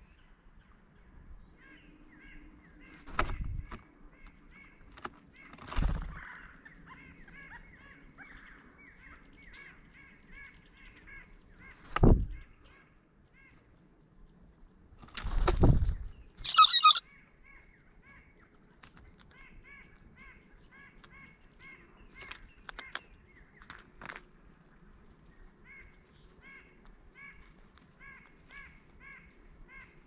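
Blue jay giving one loud, harsh call about halfway through, among a few heavy knocks of birds landing and pecking on the feeder tray. Faint short chirps of other birds repeat in the background.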